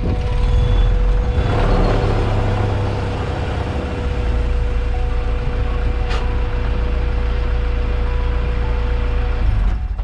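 Third-generation Acura Integra's four-cylinder engine running close by as the car rolls up, a steady low rumble with a faint steady hum over it. A brief rush of noise comes about a second and a half in, and a single sharp tick about six seconds in.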